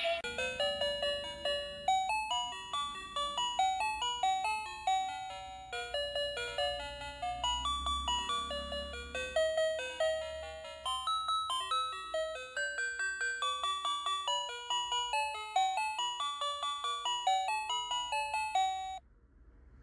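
Battery-powered dancing robot toy playing its built-in electronic tune: a quick melody of bright, bell-like beeping notes that cuts off suddenly near the end.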